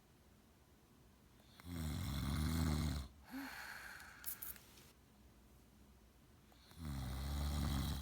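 Heavy snoring: two loud, low snores on the in-breath about five seconds apart, each followed by a softer, breathy out-breath.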